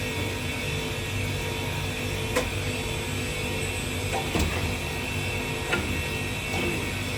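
Steady hum of running sawmill machinery, with a few sharp knocks now and then.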